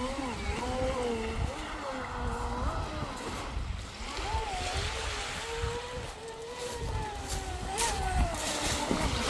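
Whine of a radio-controlled speedboat's electric drive motor, its pitch rising and falling as the throttle changes, over a low rumble.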